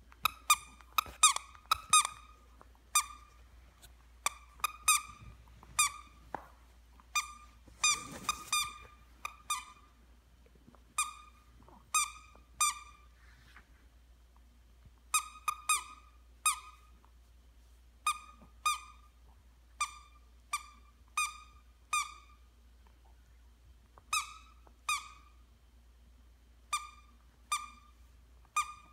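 A squeaky plush dog toy squeaking over and over as a puppy chews on it: short, sharp squeaks, all at the same pitch, coming singly or two or three in quick succession, with a brief pause about halfway through.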